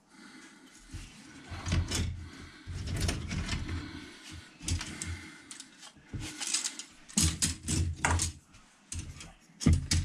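White plastic parts trees from a Revell '80 Jeep Honcho model kit clicking and clattering as they are handled, turned over and set against each other on the workbench, with irregular dull knocks.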